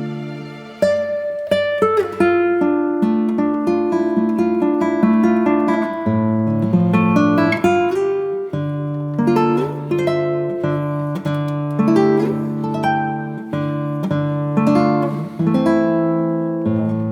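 Background music: acoustic guitar picking a run of quick notes over held low notes.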